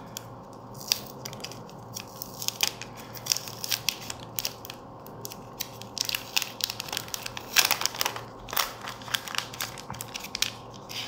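Plastic protective wrap being peeled and pulled off a new smartphone, crinkling and crackling in short bursts. The crackles grow denser and louder in the second half.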